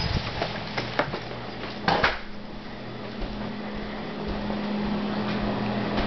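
Footsteps and knocks of someone coming in through a door, with a louder clatter about two seconds in, then a steady mechanical fan hum that slowly grows louder.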